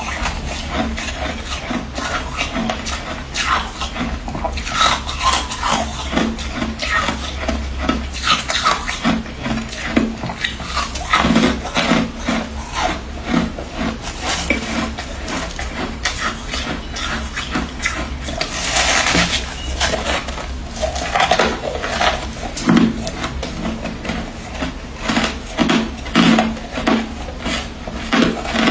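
Freezer frost being eaten close to the microphone: irregular crisp crunches as it is bitten and chewed, with a longer gritty rasp about two-thirds of the way in.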